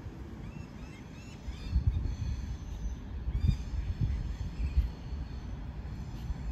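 Electric suburban train pulling away from the station, a low uneven rumble that swells from about two seconds in. Birds chirp over it in quick, repeated arched calls.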